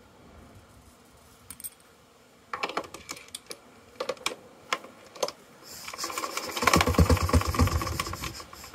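Small metallic clicks and taps as the controls of a Stuart Turner WD flat-twin air-cooled stationary engine are handled. About six seconds in comes a burst of rapid clatter, about seven beats a second, as the engine is turned over for a start.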